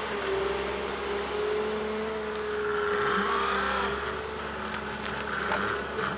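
Diesel engine of a Volvo EW 180 D wheeled excavator running steadily, with a held whining tone over the engine noise.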